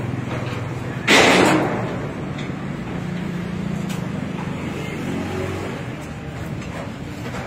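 Low, steady hum of road traffic and vehicle engines, with a loud hiss about a second in that fades away within about half a second.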